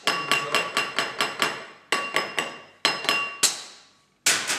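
A one-piece glass wine glass knocked hard and repeatedly against a bar counter in quick runs of about five knocks a second, with short pauses, the glass ringing after each knock. It is a strength test: the one-piece glass takes the blows without breaking.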